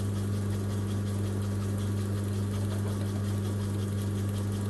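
Sherline micro lathe running at a steady speed with a constant motor hum while turning a copper part.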